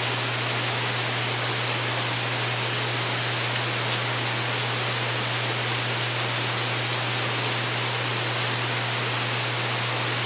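Steady rain pattering on a porch roof, an even hiss with no breaks, over a steady low hum.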